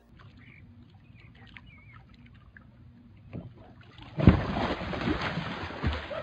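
A person tipping off a kayak into the water: a sudden loud splash about four seconds in, then about two seconds of churning, splashing water.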